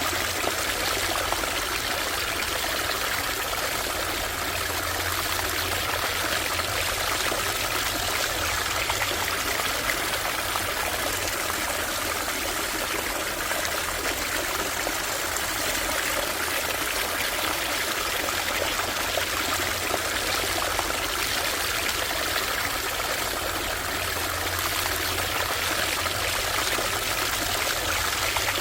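A small stream running over stones: a steady, even rush and trickle of flowing water.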